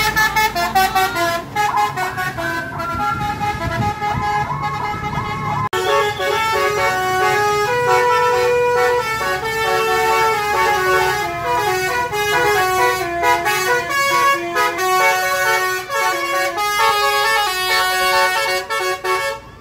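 Tour bus 'telolet' multi-tone musical horn playing a quick tune of stepped notes. The sound cuts to another horn tune about six seconds in.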